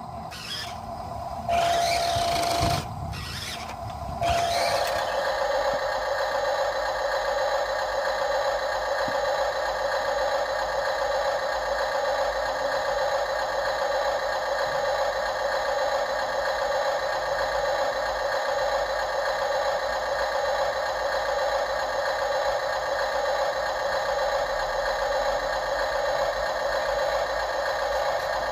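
Radio-controlled construction machine's electric motors and gears whining steadily. A few short, broken bursts of the same sound come in the first four seconds.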